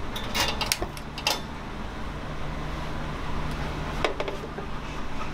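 A few light clicks and taps from a lighter being worked at an alcohol stove and then set down on a tabletop, with a faint steady hum underneath.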